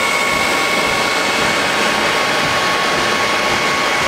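Electric leaf blower running steadily, a high whine over rushing air. It is blowing into the firebox of a wood-fired keg water heater as a forced draught to make the fire burn hotter.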